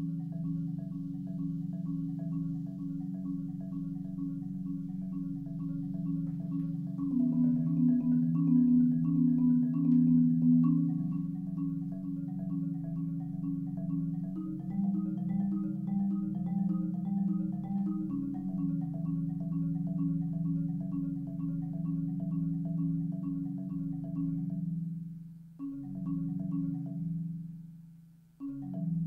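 Solo marimba played with four yarn mallets: sustained rolled chords in the low register, swelling louder about a quarter of the way in, with two brief breaks near the end.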